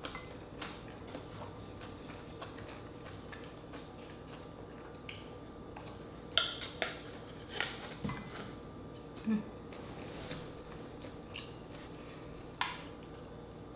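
Quiet eating and tableware sounds: a few scattered sharp clicks and taps, mostly in the middle and near the end, as rice is scooped from a wooden bowl and green-lipped mussels in their half shells are handled on a plate.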